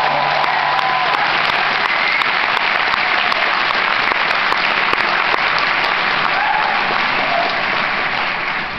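A large concert-hall audience applauding loudly and steadily. The band's last held note dies away within the first two seconds.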